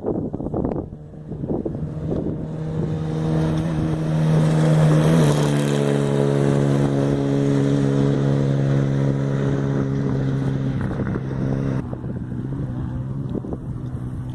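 Off-road race vehicle's engine running hard at a steady high pitch, which drops in one step about five seconds in and then holds. The high end cuts away near the end, with wind on the microphone.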